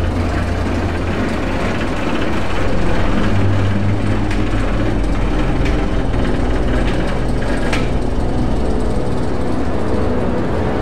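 Inverted roller coaster train being hauled up the chain lift hill: a steady mechanical hum and rumble with faint clatter and a few clicks.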